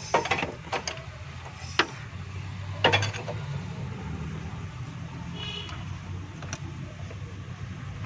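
A few sharp metallic clicks and knocks from hands and tools on the engine, most of them in the first three seconds, over a steady low hum.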